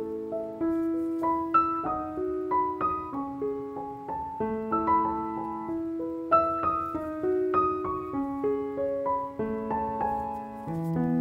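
Background piano music: a melody of separate notes, each struck and then fading, over lower held notes.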